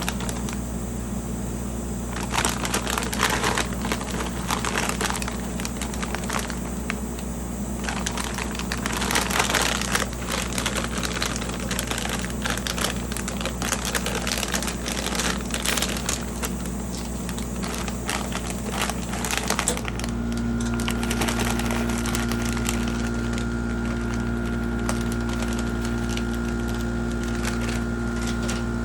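Plastic snack packaging crinkling and rustling, with many small crackles and crunches from the snacks being handled and crushed. About twenty seconds in, a steady motor hum with a held tone starts and continues.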